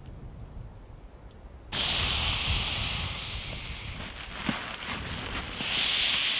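Air rushing out of a hand-squeezed pump sack into an inflatable sleeping mat: a loud hiss that starts abruptly about two seconds in and swells twice. Before it, a low rumble of wind on the microphone.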